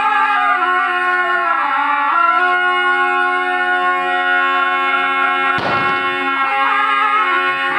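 Zurle (Albanian folk shawms) playing a nibet tune, loud and nasal: one steady drone held under a wavering, ornamented melody. A single heavy stroke of a large double-headed drum lands about five and a half seconds in.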